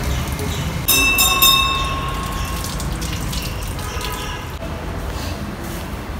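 Water running from a wall tap during hand-washing. About a second in, a bright metallic ring is struck once and dies away over about a second and a half, typical of a temple bell.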